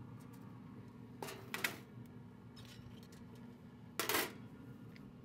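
Metal tongs and a metal sheet pan clattering as a smoked rib roast is lifted off a pellet smoker's steel grate and set down: two short bursts of clatter, about a second in and again about four seconds in, the second louder, over a steady low hum.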